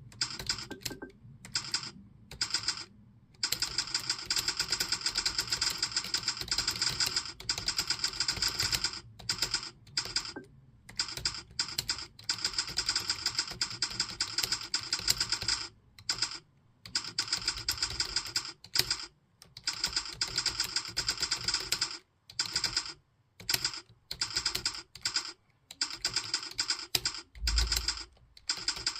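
Fast touch-typing on a computer keyboard: a rapid stream of key clicks in long runs, broken by brief pauses.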